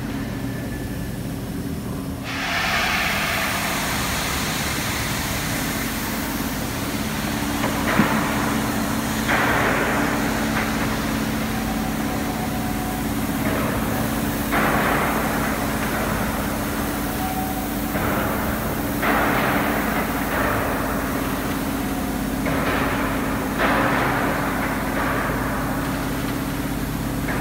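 Large colliery winding engine running slowly: a steady low mechanical hum with a hissing rush that comes back every few seconds as the valve gear works, and one sharp knock about eight seconds in.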